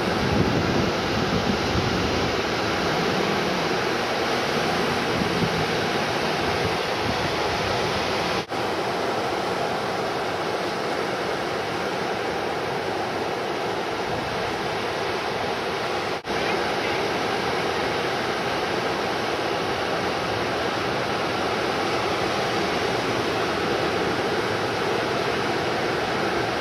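Steady wash of ocean surf breaking, briefly cutting out twice.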